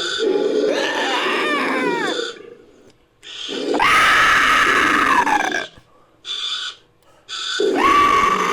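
Made-up creature sound effect built from layered animal calls and a human voice: four calls in a row. The first glides down in pitch, the second is long and loud, holding its pitch before dropping, the third is a short burst, and the fourth starts near the end.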